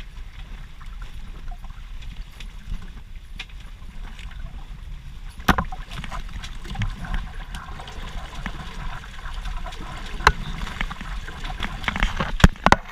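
Water splashing and rushing along the hull of a Wayfarer sailing dinghy in choppy water, over a steady low rumble of wind on the microphone. Several sharp knocks come through it, the loudest near the end.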